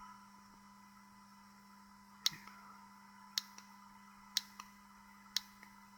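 Button clicks on a DSO201 pocket oscilloscope as its menu is stepped through: five sharp single clicks, starting about two seconds in and coming about a second apart, over a faint steady hum.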